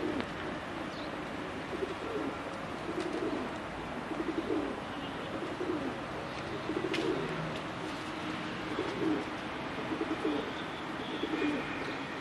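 Domestic pigeons cooing: many low, repeated coos that overlap one another, with a few faint clicks among them.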